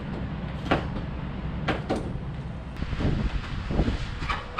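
Demolition machinery running in a steady low rumble, with several short sharp knocks and clanks over it.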